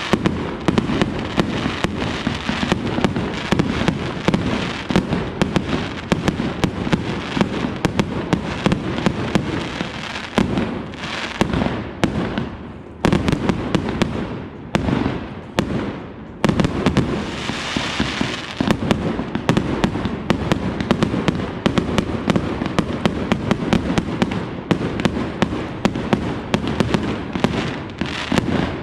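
A large boxed consumer fireworks display (a keg-sized cake) firing continuously: rapid, densely packed bangs going off several times a second, with brief lulls about twelve and sixteen seconds in.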